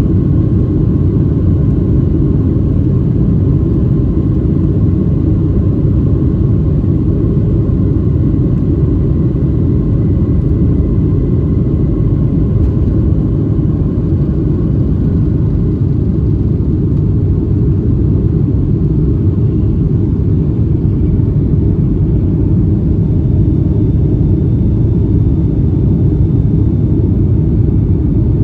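Boeing 757-300 jet engines at takeoff thrust, heard from a cabin window seat during the takeoff roll and liftoff: a steady loud rumble with a faint high whine over it.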